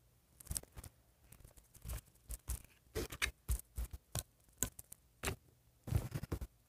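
Plastic parts of a Lotta Looks doll being handled and swapped by hand: an irregular series of clicks, taps and short scrapes, the loudest cluster near the end.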